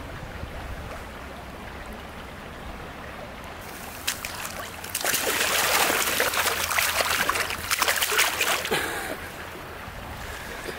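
Water splashing in a shallow creek, starting about four seconds in and lasting about five seconds, over the steady flow of the stream and a low wind rumble on the microphone.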